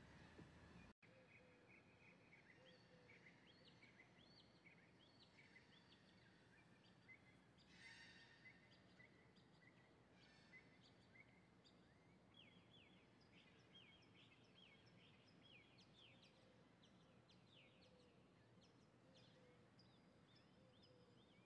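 Faint birds calling outdoors: many short chirps, a harsher call about eight seconds in, and quick runs of chirps through the second half.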